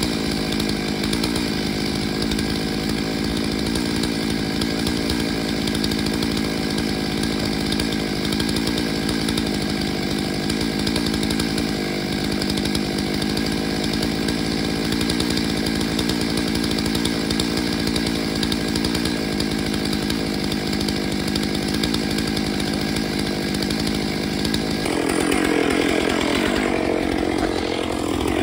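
Stihl MS 881 large two-stroke chainsaw engine running steadily at an even pitch. About 25 seconds in, the sound grows louder and rougher.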